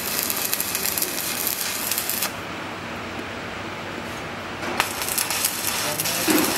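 Stick (arc) welding: the electrode crackling and hissing as it burns against the steel frame, in two runs, one ending about two seconds in and the next starting about five seconds in.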